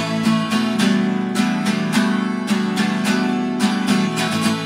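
Acoustic guitar strummed in a steady rhythm, about three strokes a second, with no singing over it.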